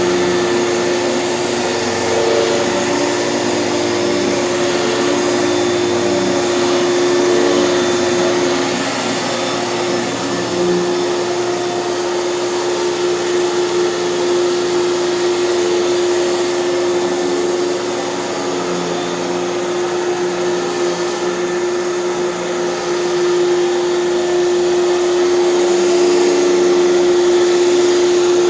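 Hoover canister vacuum cleaner running steadily with its power nozzle on carpet, a constant motor whine over the airflow rush, the level rising and dipping slightly as the nozzle moves.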